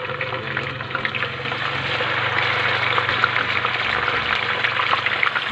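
Pork belly slabs deep-frying in hot oil in a wok: steady sizzling with a dense patter of small crackles, growing a little louder about two seconds in as a second slab goes in.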